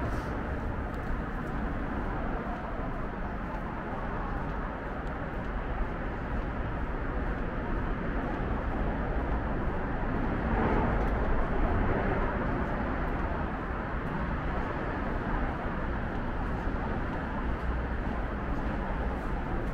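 Steady rumble of road traffic heard inside a tiled pedestrian underpass, swelling briefly about halfway through as a vehicle passes, with faint footsteps.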